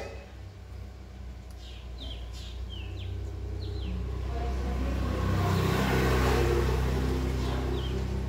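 A motor vehicle passing, its rumble swelling to a peak about six seconds in and then easing off. Before it, a bird gives a few short, high chirps.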